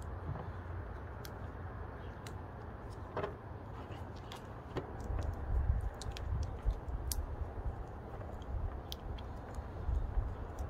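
Vinyl electrical tape being pulled off the roll and wrapped around a cable end: scattered small clicks and crackles over a low rumble.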